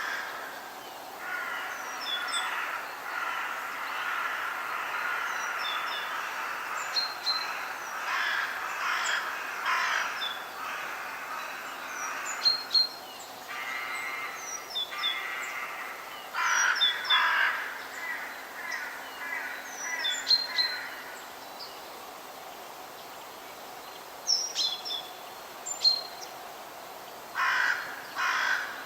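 Crows cawing in repeated harsh, ragged calls, coming in bunches that thin out after about twenty seconds, with a last burst near the end. Small birds give short high chirps throughout over a faint steady low hum of forest ambience.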